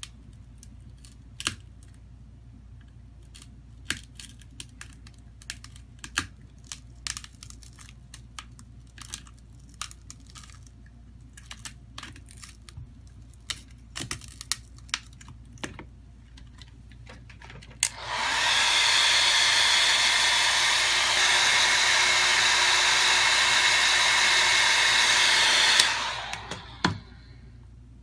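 Small scattered clicks and taps of a pry tool working around the edge of a phone's screen and frame. About eighteen seconds in, a hot-air blower starts suddenly, runs steadily with a whine for about eight seconds and then dies away.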